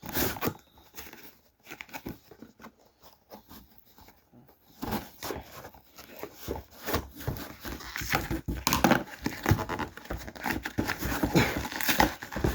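Packaging being wrestled open by hand: plastic and cardboard crinkling, tearing and snapping in irregular crackles, sparse at first and busier from about five seconds in.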